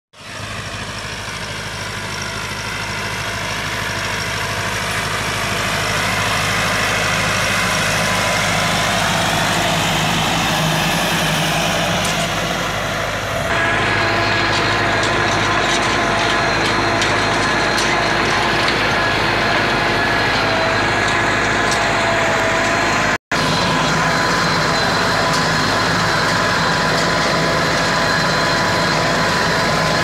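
Massey Ferguson 375 tractor's four-cylinder diesel engine running steadily under load while ploughing dry soil. It grows louder over the first few seconds as the tractor comes nearer, and about halfway through it is heard up close, with one brief dropout about three-quarters of the way in.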